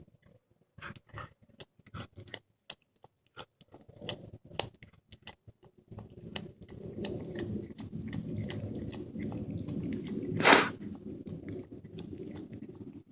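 Cat chewing and crunching on a squirrel in irregular sharp clicks, then purring steadily as it eats from about six seconds in. Near the end comes one loud, sharp crunch.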